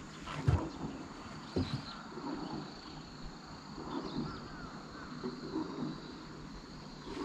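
Faint outdoor ambience with scattered short bird calls every second or two and a faint steady high tone. Two dull knocks sound about half a second and a second and a half in.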